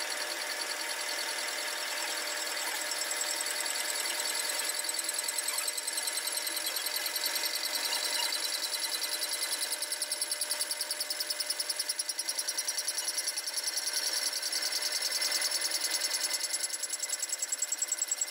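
Haas VF-6 CNC mill's boring head with a single brazed carbide tool fly-cutting a shallow crosshatch across the face of a large metal plate at 100 rpm. It makes a steady, high-pitched cutting sound that pulses in a quick, regular rhythm.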